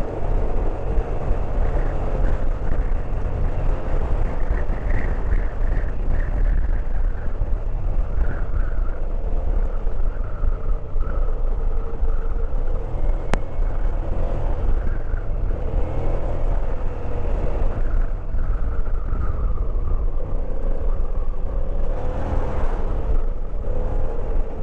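Motorcycle riding along the road: a steady engine and wind rumble on the microphone that stays even throughout.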